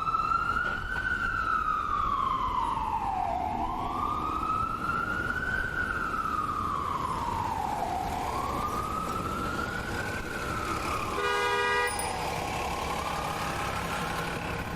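Ambulance siren in a slow wail, rising and falling about every four and a half seconds over a low traffic rumble. About eleven seconds in, a short horn blast cuts across it, after which the wail weakens and a low engine hum comes up.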